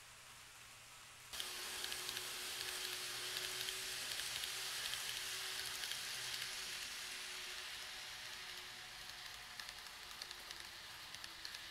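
N-gauge model train running on its track: an even fizzing wheel-on-rail noise full of small rapid clicks, with a faint steady whine, starting suddenly about a second in.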